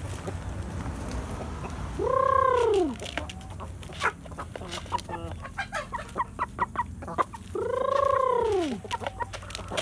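Shamo chickens calling: two loud drawn-out calls, each rising then falling in pitch over about a second, one about two seconds in and one near the end. Between them comes a quick run of short, sharp clucking sounds.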